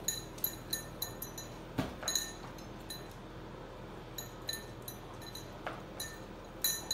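Food bowl clinking as a puppy eats from it: a run of irregular, ringing clinks, a few a second, with louder knocks about two seconds in and near the end.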